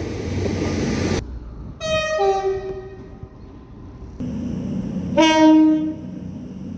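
Train horns: a loud rush of train noise that cuts off about a second in, then a two-tone horn sounding a higher note followed by a lower one. About three seconds later comes a single louder, low horn blast over the train's running noise.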